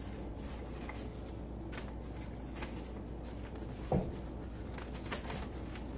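Plastic cling wrap crackling faintly as it is pulled off the roll and wound around a plastic skeleton, with a single sharp knock about four seconds in.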